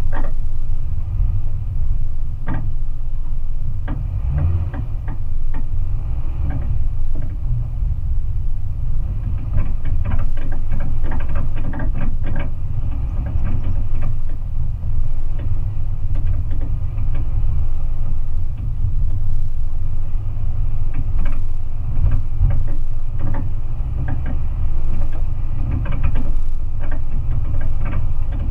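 Off-road vehicle crawling over a rocky dirt track: a steady low rumble from the engine and drivetrain, with scattered clicks and rattles as the tyres and body jolt over stones, a cluster of them around the middle.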